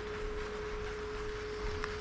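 Steady high-pitched electrical whine from an HO-scale model railway layout, one pure unchanging tone over a faint hiss, with a light click near the end.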